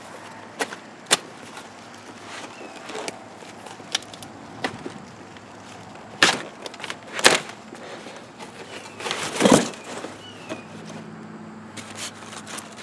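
A large cardboard shipping box being unpacked by hand: plastic strapping pulled off and cardboard handled, giving scattered sharp snaps and knocks. A longer scraping rustle of cardboard comes about nine seconds in.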